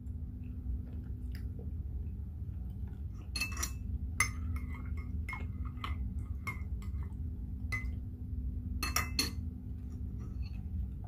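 Metal teaspoon stirring tea in a ceramic cup, clinking against the sides with a short ringing tone, starting about three seconds in, with a few louder clinks of china near the end. A steady low hum runs underneath.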